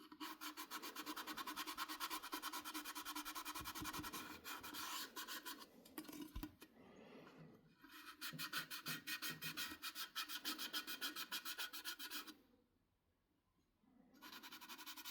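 Rapid back-and-forth scrubbing on an Electrolux kettle's stainless steel, about six strokes a second, in three runs with short pauses between.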